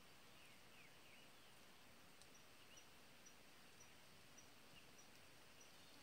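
Near silence: faint outdoor background hiss with a few faint, short bird chirps and a faint high ticking about twice a second.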